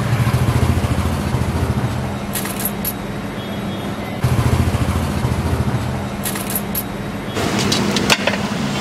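Street ambience: a steady low rumble of vehicle engines, with a few scattered clicks and clatters.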